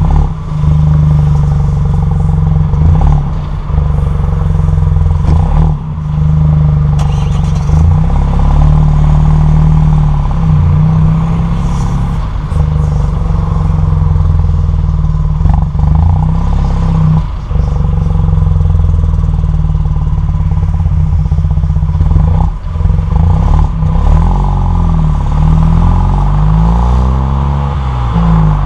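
Fiat 500S TwinAir's 0.9-litre two-cylinder turbo engine heard close at its stock exhaust tailpipe while driving, the note rising and falling with the throttle. It drops away briefly a few times between pulls.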